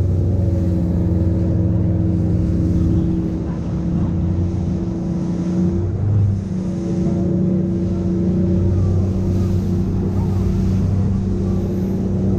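Boat's outboard motor running at a steady cruising speed, with water rushing and spraying off the hull as it runs. The engine tone breaks briefly about halfway through, then carries on at the same pitch.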